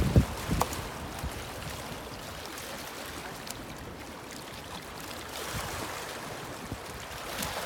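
River water washing and lapping against a rocky bank, a steady wash, with a brief low bump right at the start.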